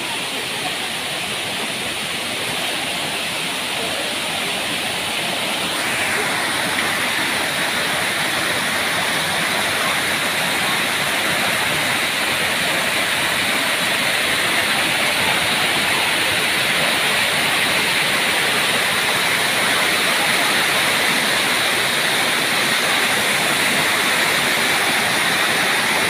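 Waterfall cascading down stepped rock: a steady rushing of water that grows brighter and louder about six seconds in, then keeps slowly rising.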